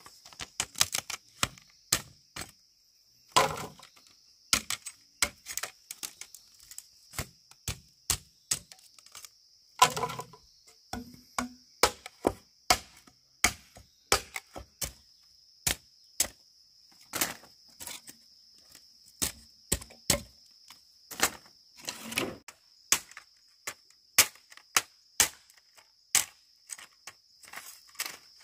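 Tool strikes on bamboo: sharp knocks and taps at an uneven pace, about one or two a second, with three heavier thuds spread through.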